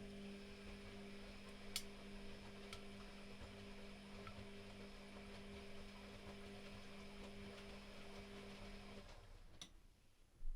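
Privileg Classic 30612 washing machine humming steadily and quietly, the hum stopping about nine seconds in, with a faint click shortly after.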